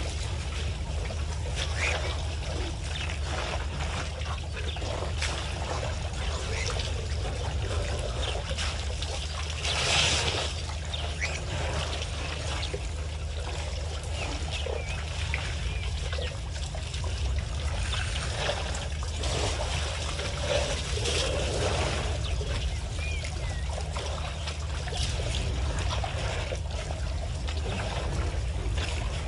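African bush elephants drinking at a waterhole: water trickling and splashing as trunks draw it up and pour it into their mouths, with a louder splash about ten seconds in. A few faint bird chirps over a steady low hum.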